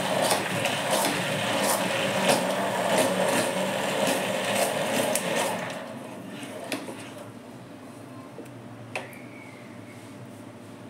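Hand-held electric immersion blender running in a pot of boiled mixed dal, pureeing it, then switched off a little past halfway. A single sharp knock near the end.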